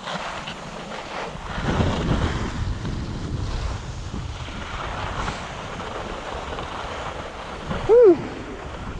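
Wind buffeting a GoPro's microphone and skis sliding over snow on a downhill run, a steady rushing noise that swells about two seconds in. About eight seconds in comes a short call that rises and falls in pitch, the loudest sound here.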